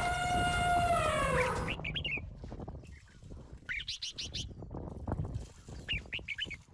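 An African elephant trumpets for about two seconds, the call dropping in pitch as it ends. Short bird chirps follow three times.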